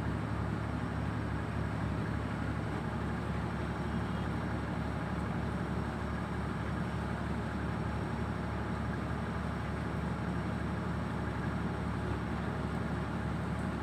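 A ship's engine on board an anchored barge running steadily at constant speed: an even low hum with a fast, regular pulse.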